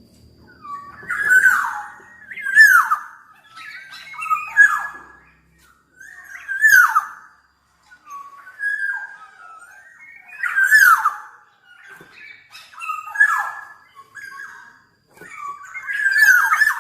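Black-naped oriole calling over and over: a run of loud, harsh notes that slide downward, one every second or so.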